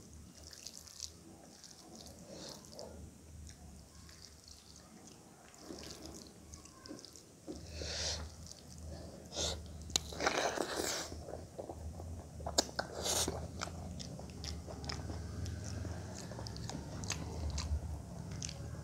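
A person eating rice and curry by hand from a metal plate: soft squishing as fingers mix the rice and curry, then a mouthful taken about halfway through, with wet chewing and lip clicks.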